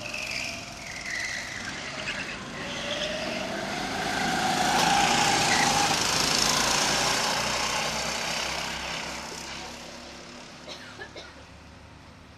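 Go-kart engines buzzing as the karts approach along the track, with the engine note climbing. They are loudest as they pass close by, about five to seven seconds in, then fade as they drive away.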